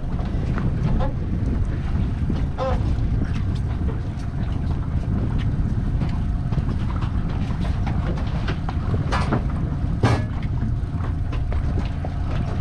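Boat's outboard motor running steadily at trolling speed, with wind buffeting the microphone and a few brief sharp knocks.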